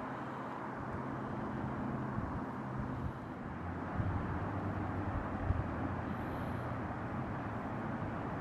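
Steady hum of distant city traffic, a constant low rumble with no distinct events.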